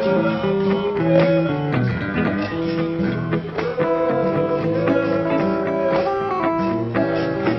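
Blues music led by plucked guitar, with low bass notes underneath.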